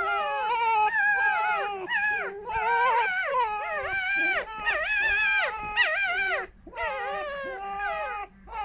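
Two foxes squabbling with continuous high-pitched, wavering whining cries, their voices overlapping and rising and falling, with a short break about two-thirds of the way through. It is a harmless squabble over a den rather than a real fight.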